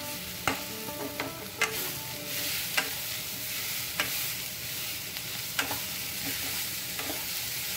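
Boiled potato cubes frying in oil in a nonstick kadai with a steady sizzle, while a wooden spatula stirs and turns them, knocking against the pan now and then.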